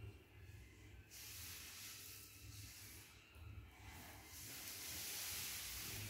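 Faint background noise: a steady low hum with a high hiss that swells up about a second in and again for the last couple of seconds.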